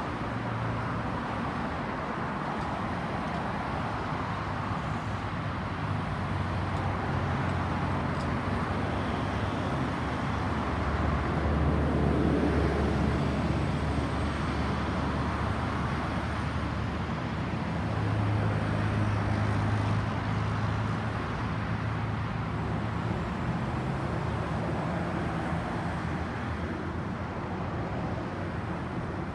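Jet engine rumble of a Boeing 737-800 climbing out after take-off, its two CFM56-7B turbofans heard from the ground as a steady roar that swells about a third of the way in and again past the middle. Road traffic runs underneath.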